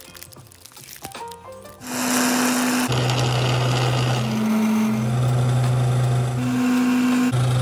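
A coffee machine's pump buzzing loudly as it runs water onto a lollipop over the metal drip tray, with a rushing hiss of water. It starts about two seconds in, and the buzz switches between a higher and a lower pitch every second or so. Soft background music plays before it starts.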